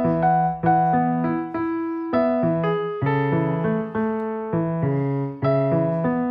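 Background music: a piano or electric piano playing chords at a steady pace, each struck chord fading before the next.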